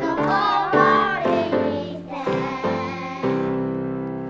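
Girls' choir singing with instrumental accompaniment, ending on a long held note that fades near the end.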